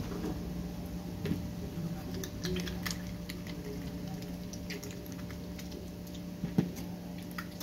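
Onions browning in oil in a frying pan, crackling with scattered small pops over a steady low hum. A single louder knock comes about six and a half seconds in.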